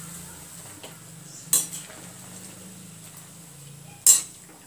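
A slotted metal spoon clinks twice against the side of a metal kadhai, about a second and a half in and again near the end, as it presses spinach and coriander leaves into boiling water. A low steady hum runs underneath.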